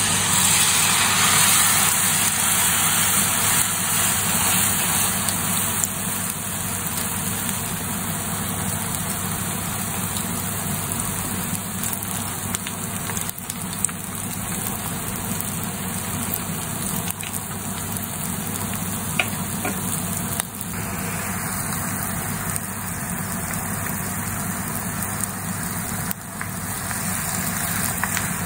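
Tempura-battered cup yakisoba noodles deep-frying in a shallow pan of hot oil: a steady loud sizzle with scattered sharp pops and crackles.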